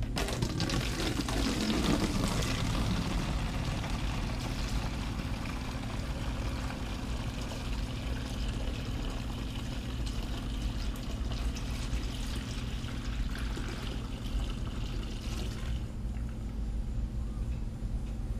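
Used engine coolant pouring from a bucket through a plastic funnel into a one-gallon plastic jug, a steady stream that stops about sixteen seconds in.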